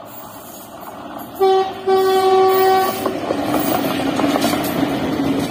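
Indian Railways electric locomotive sounding its horn as it passes at speed: a short blast, then a longer blast of about a second, on one steady pitch. The horn cuts off and the train rushes past with a rising rumble of wheels on rail and a low steady hum underneath.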